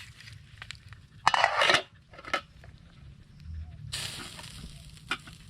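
A cooking pot clattering and scraping briefly as it is set onto the fire, with a few lighter knocks, then a steady crackling hiss from the fire beneath it starting near the end.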